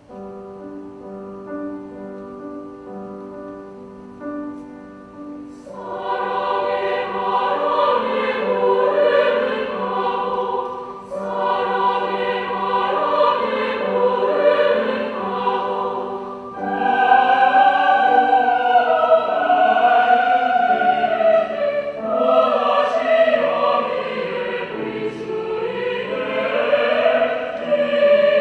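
Mixed choir singing in Korean, with soft held chords at first and the full choir coming in louder about six seconds in.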